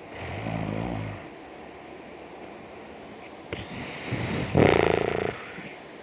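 Dog growling in anger: a short rasping growl, then a longer, louder growl with a rough rattling pulse at its peak.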